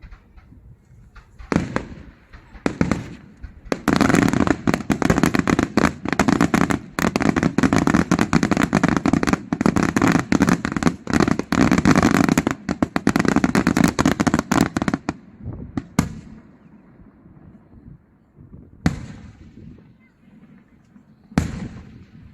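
Daytime fireworks display: a few single bangs, then a dense, rapid run of firecracker-like bangs for about eleven seconds, thinning to a few scattered bangs near the end.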